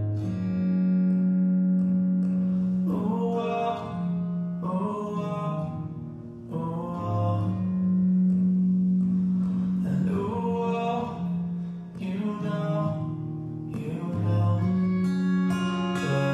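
Band music: a song passage with plucked guitar over a steady bass line, and no sung lyrics.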